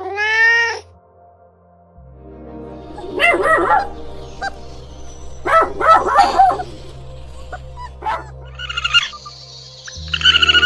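Animal calls over soft background music: a short call rising in pitch at the start, then two bursts of cries with wavering pitch a couple of seconds apart, and a shorter one later. Chirps come in near the end.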